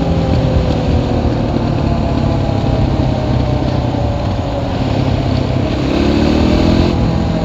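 Suzuki quad bike's engine running under way: its pitch eases down in the first second, holds steady, then climbs about six seconds in as the throttle opens.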